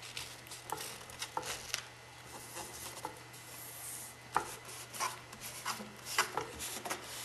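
Hands pressing and rubbing transfer tape down over vinyl lettering on a ceramic tile: irregular small crinkles, taps and scrapes of the paper under the palms, over a faint steady hum.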